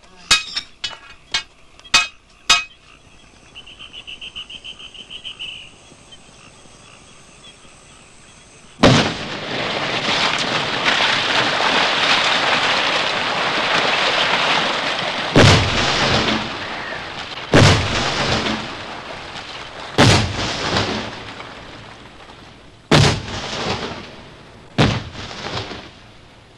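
A hammer striking a hand-held steel rock drill, a handful of evenly spaced metallic knocks. About nine seconds in, a sudden rock blast sets off a long rush of falling rock and debris. Five more blasts follow, each a sharp crack with a trailing rattle of stones.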